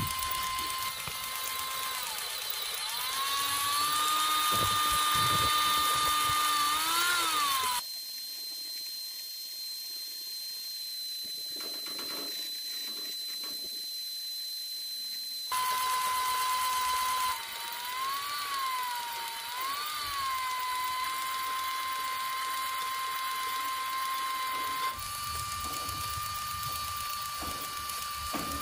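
Small motor of a model mini tractor whining steadily as it drives a miniature fodder-cutting machine. The pitch sags and recovers several times as handfuls of grass load the cutter.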